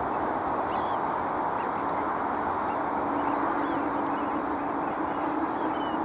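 Large flock of birds passing overhead, a dense, steady din of many birds calling, with short high calls picked out on top and a faint low hum underneath.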